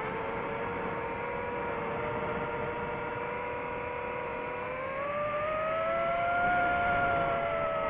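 FPV quadcopter's electric motors and propellers whining steadily, heard from the onboard camera; the pitch rises about five seconds in and the sound gets a little louder.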